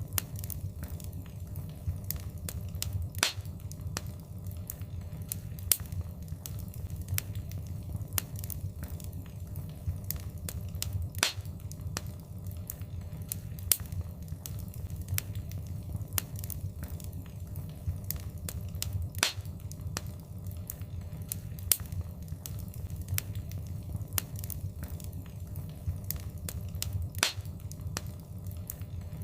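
Wood fire crackling: many small irregular snaps and a few louder pops over a low, steady rumble of the flames.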